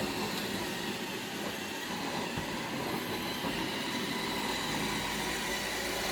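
iRobot Roomba 691 robot vacuum running on carpet: a steady whir of its motors and brushes, with a faint steady whine.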